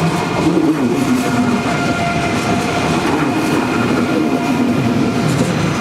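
German ICE3 high-speed train's wheels squealing and creaking on a very sharp curve: several steady high squealing tones over lower wavering creaks and the running noise of the train.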